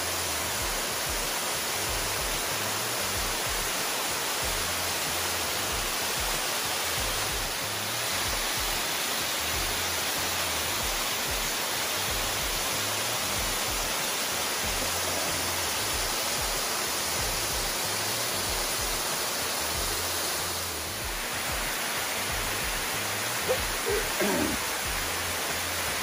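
Waterfall cascading over a rock face: a steady, even rush of falling water. A few brief, louder sounds break in near the end.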